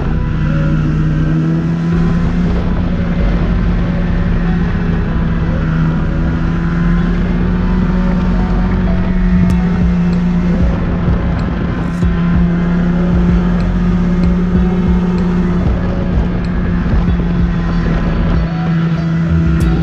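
Snowmobile engine running at a steady speed under way, holding one even pitch the whole time over a rough low rumble.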